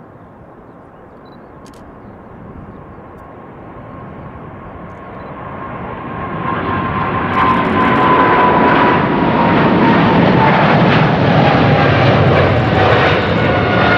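The two GE90-115B turbofans of a Boeing 777-300ER at takeoff thrust as the airliner climbs away. The jet noise swells over the first half and then holds loud and crackling, with a whine that slowly falls in pitch.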